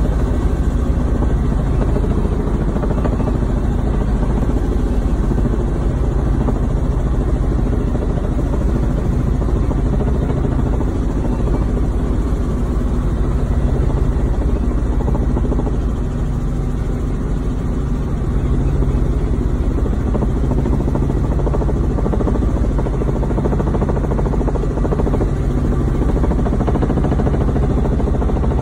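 Robinson R44 helicopter in flight, heard from inside the cockpit: its piston engine and rotors make a steady, loud drone that stays even throughout.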